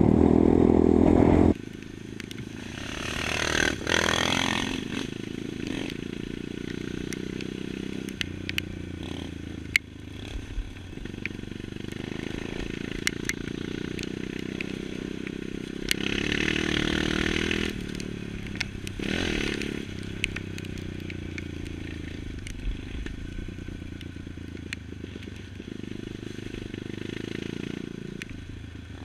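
Honda CRF 230F dirt bike's single-cylinder four-stroke engine running under way, its revs rising and falling with the throttle, loudest in the first second or so. Sharp clicks and rattles from the bike over rough ground come through along with it.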